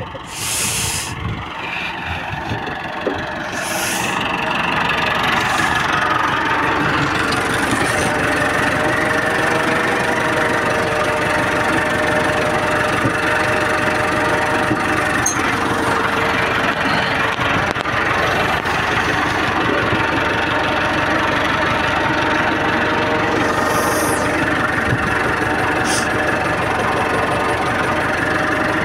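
Massey Ferguson 385 tractor's four-cylinder diesel engine running steadily, heard close up from the driver's seat; it grows louder about four seconds in and then holds an even note.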